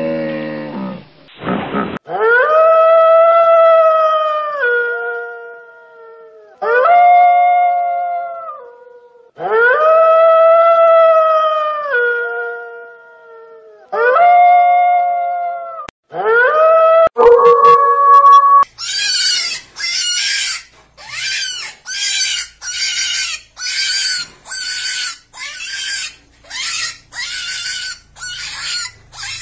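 A wolf howling: about five long howls, each holding a steady pitch and then dropping in steps as it ends. From about two-thirds of the way through comes a quick run of short, harsh, high-pitched calls, a little over one a second.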